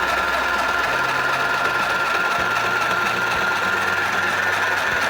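Mini electric sewing machine running steadily as it stitches through cloth, with a steady high motor whine.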